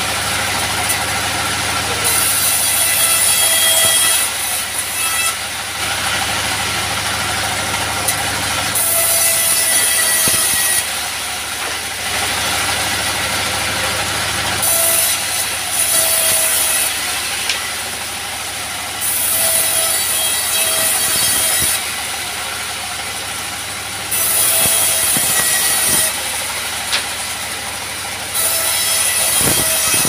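Engine-driven bandsaw sawmill running steadily, its blade ripping thin strips from wooden offcuts in a series of cuts of about two seconds each. Each cut brings a high-pitched hiss over the steady hum of the engine and blade.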